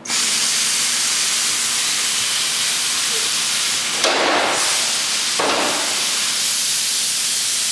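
Pneumatic air ratchet motor on a Taylor panel clamp running, a loud, steady hiss of exhaust air that starts abruptly. There are two brief louder surges, about four and five and a half seconds in.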